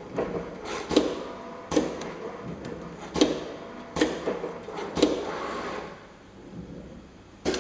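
ZY-510B automatic rule bending machine working a steel rule blade: a run of sharp metallic clacks, roughly one a second, with a whirring hiss between them. The clacks pause for over a second before a last one near the end.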